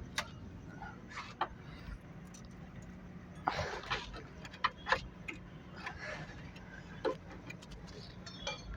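Hand tools clicking and clinking against metal car AC fittings, scattered irregular knocks with a few short scraping sounds, over a faint steady low hum.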